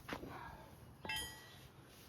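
A metal tool or part struck or set down, giving one sharp clink about a second in with a brief ring, after a fainter click near the start.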